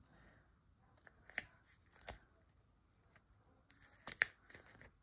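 Faint handling noise of embroidery floss being wound around a sticky clear plastic bowl mould: scattered soft ticks and crinkles, with two sharper ticks close together about four seconds in.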